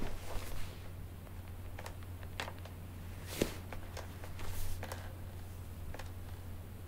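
A few faint, short clicks and a brief soft rustle over a steady low hum.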